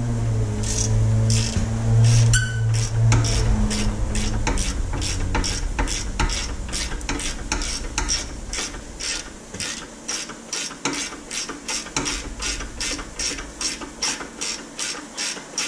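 A 17 mm ratchet wrench clicking as it backs out a rear brake caliper bolt, with even clicks at about three a second. A steady low hum runs underneath for the first six seconds or so.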